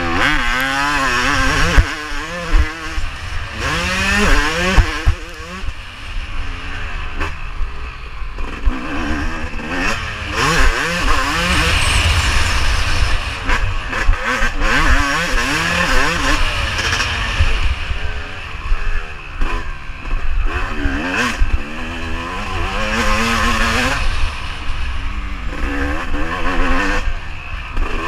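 Yamaha YZ250 two-stroke motocross engine revving hard under race load, its pitch climbing and dropping again and again as the rider accelerates and shifts between corners. Wind rumbles on the microphone throughout, and a few sharp knocks come in the first five seconds.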